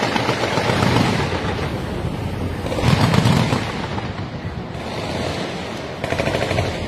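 Military live-fire drill: guns firing in rapid bursts, with heavy booming explosions rolling in about one and three seconds in, and another fast burst of shots near the end.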